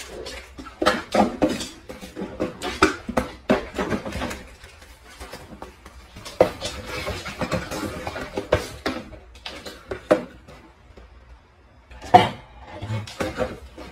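Cardboard boxes and packaging being handled: irregular rustles, scrapes and knocks, with a louder knock about twelve seconds in.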